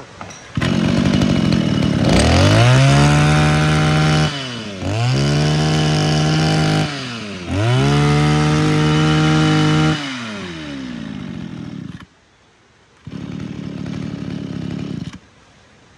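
Mitsubishi TL231 23cc two-stroke brush cutter engine starting, then revved to full throttle three times, each burst held for about two seconds before it drops back to idle. The engine cuts off about twelve seconds in.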